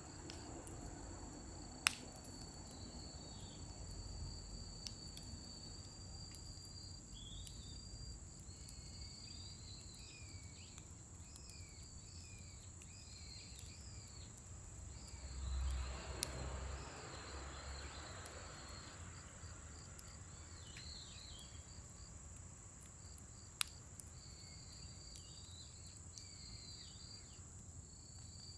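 Scrap-wood fire burning quietly, with a few sharp pops from the wood and a brief rushing swell about halfway through, over a steady high trill of crickets and chirping insects.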